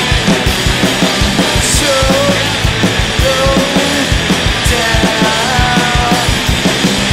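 Live punk rock from an electric guitar and a drum kit, with steady, driving drum hits and a man singing over them.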